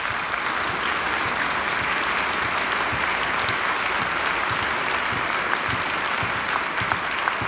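Large audience applauding: a full, steady round of clapping that holds throughout.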